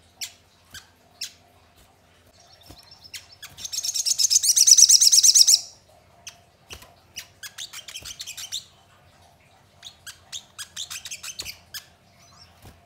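Caged sunbird calling: sharp, high chirps in short runs, broken about a third of the way in by a loud, fast trill of rapid repeated notes lasting about two seconds.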